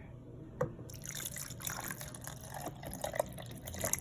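Water being poured into a small drip coffee maker, an irregular splashing trickle that starts about a second in.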